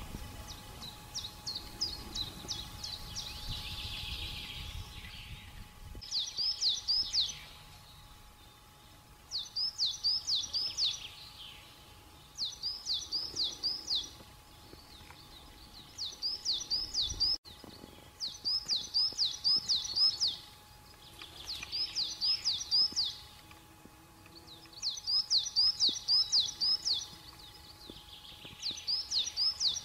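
A songbird singing the same short phrase of quick, high notes over and over, a new phrase about every three seconds. Low wind rumble on the microphone in the first few seconds and a faint steady hum underneath.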